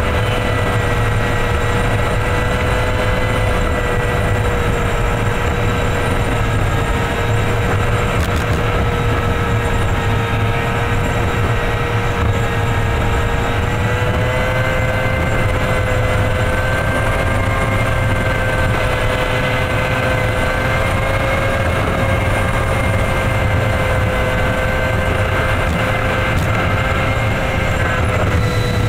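Truck running at a steady highway cruise: a constant low drone with a steady engine and drivetrain whine that drifts slightly in pitch.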